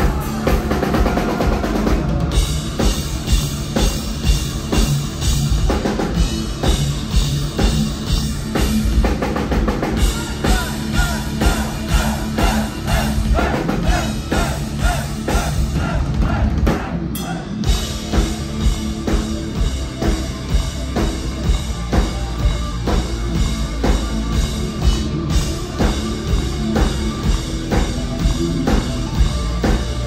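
Rock band playing live with no singing, the drum kit loud and beating steadily, with a brief break about seventeen seconds in.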